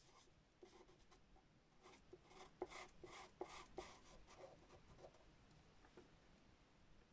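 Faint scratching of a pastel pencil stroking across pastel paper in short, quick strokes, with a few sharper ticks, busiest between about two and a half and four seconds in.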